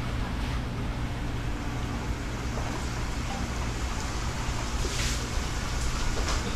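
Steady rush of aerated water with a low pump hum from live-seafood tanks.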